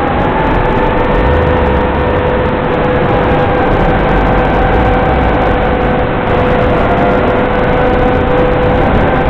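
Loud, constant static hiss from an analog FPV video link's audio channel, with two steady thin whining tones running through it, one wavering slowly in pitch.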